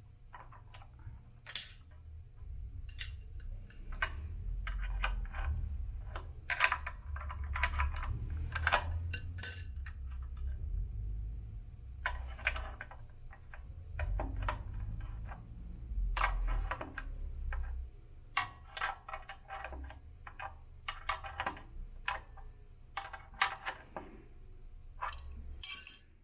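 Adjustable wrench working the crank nuts on an elliptical's one-piece crank: scattered metal clicks and clinks of the wrench on the nuts and frame, over a low uneven rumble of the machine being handled.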